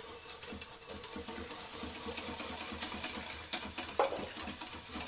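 Metal wire whisk beating crêpe batter in a bowl, its wires rapidly scraping and clicking against the bowl. A single sharp knock about four seconds in.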